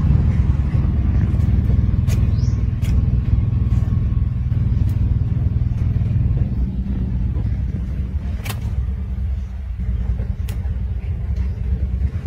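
Steady low rumble with a few sharp clicks, the clearest about two-thirds of the way in and near the end.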